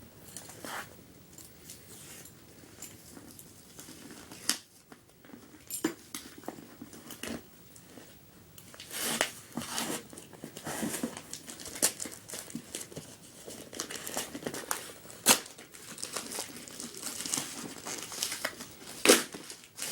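A small mailing package being torn and crumpled open by hand: irregular crinkling and ripping, sparse at first and busier from about halfway in, with a few sharp louder rips.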